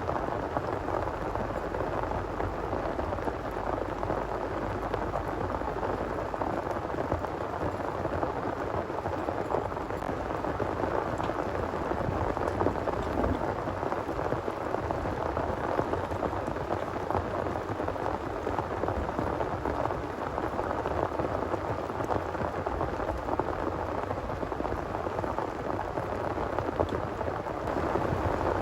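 Heavy rain falling steadily, an even pouring hiss with no breaks.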